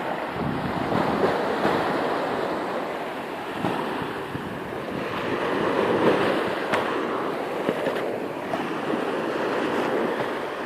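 Sea waves washing in as a steady rush of surf, swelling louder about a second in and again around six seconds in.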